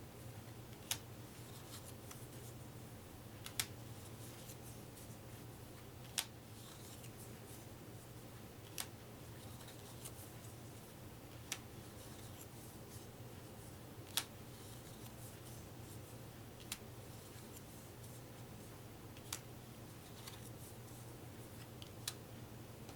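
Playing cards being laid down one at a time, each landing with a sharp snap about every two and a half seconds, nine in all, over a low steady hum.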